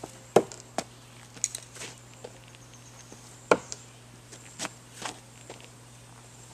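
Thrown screwdrivers hitting a wooden log-round target twice, sharply, about half a second in and again about three and a half seconds in. Lighter clicks and knocks come between the two hits, over a faint steady hum.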